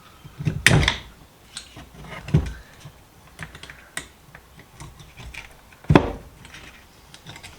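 Metal hand tool clicking and scraping against a rusted vise while working at a seized cotter pin. Irregular small clicks, with three louder knocks: about a second in, about two and a half seconds in, and near six seconds.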